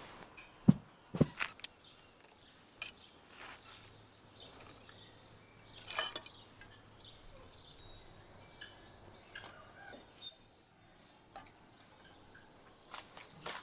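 Outdoor background with scattered short clicks and knocks, the sharpest near the start and one about six seconds in, and faint bird chirps.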